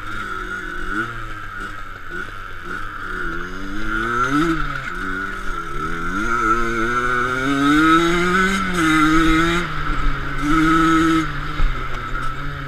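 Enduro dirt bike's engine heard on board while riding a gravel trail, its revs rising and falling over and over as the throttle is worked, climbing to its highest about two thirds of the way through and holding there twice in short bursts near the end.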